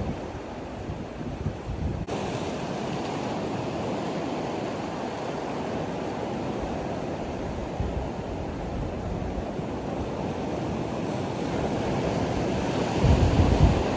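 Sea surf washing against coastal rocks, a steady rushing wash, with wind buffeting the microphone in a low rumbling gust near the end.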